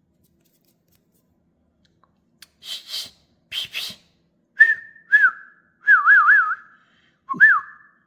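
Two short breathy hisses, then from about halfway in a run of clear whistled notes, several of them warbling quickly up and down.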